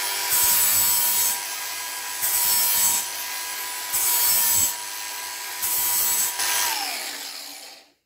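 Angle grinder with a flap disc sharpening a steel lawnmower blade: the motor runs with a steady whine while four louder grinding passes along the blade's edge come and go. Near the end it is switched off and the whine falls as the disc spins down.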